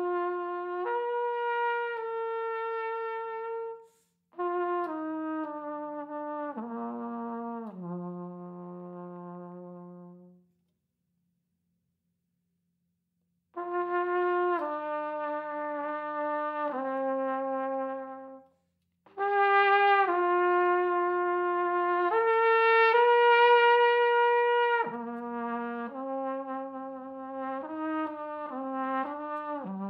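Unaccompanied flugelhorn playing slow, sustained notes in phrases. A descending phrase fades out about ten seconds in, followed by a rest of about three seconds, then the playing returns, growing louder before settling again.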